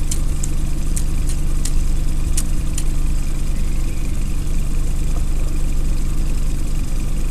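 Steady low hum of a boat's motor, with a few sharp light clicks in the first three seconds.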